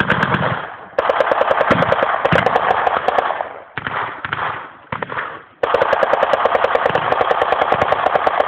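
Machine gun firing blanks in rapid automatic bursts of roughly ten rounds a second. A long burst starts about a second in, two short bursts follow around the middle, and another long burst runs on at the end.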